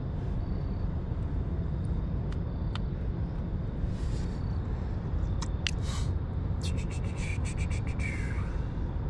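Small splashes and water sloshing around a flathead catfish held in the river at the boat's side, over a steady low rumble. A run of sharp clicks and splashes comes in the second half.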